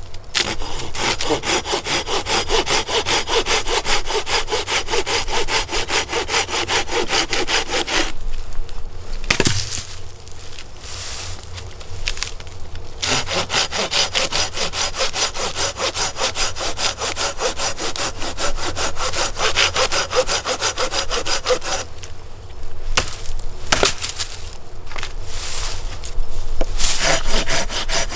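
Hand saw cutting through a wooden log with rapid back-and-forth strokes, in two long runs separated by a pause of a few seconds, then slower, scattered strokes near the end.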